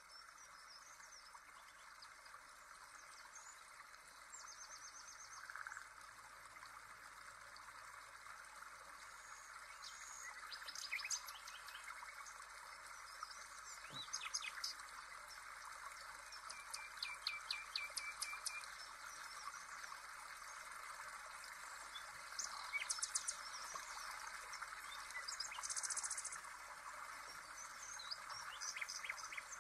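Birds chirping and trilling in short, scattered calls over a steady soft rush of running water.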